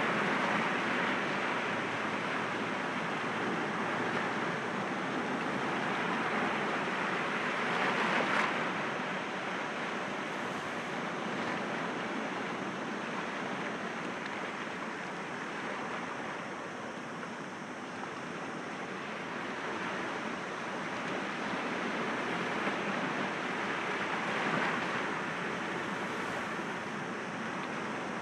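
Sea waves breaking gently against rocks: a steady wash of surf that swells and eases in slow surges, loudest about eight seconds in and again near the end.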